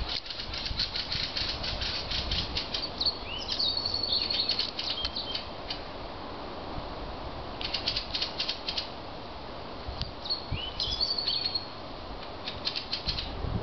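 A songbird sings two short phrases, each with a rising note and a high trill, about three seconds in and again about ten seconds in. Runs of quick high clicks come and go around them.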